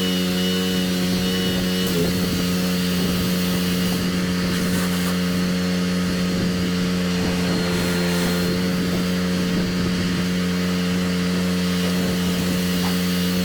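Pressure washer's engine running at a steady speed, with a hiss of water spray over it.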